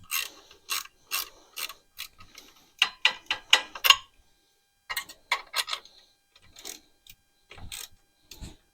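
Hand ratchet wrench clicking in short runs of quick strokes with brief pauses between them, as a fastener is turned down.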